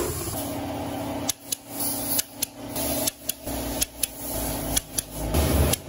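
Sharp metal clicks at uneven intervals, about a dozen, from a socket tool on a long extension working the flywheel bolts of an Isuzu 4HK1 diesel engine. A steady hum runs underneath.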